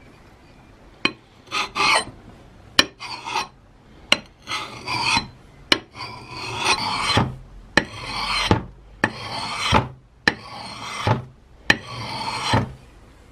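Steel edge of an old hatchet head stroked across a wet sharpening stone. About ten separate scraping strokes, many starting with a sharp click as the blade meets the stone.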